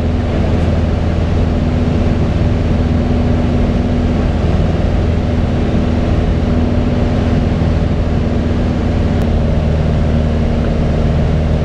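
Piper Cherokee 180G's four-cylinder Lycoming engine and propeller in steady cruise, heard inside the cockpit as an even, unchanging drone.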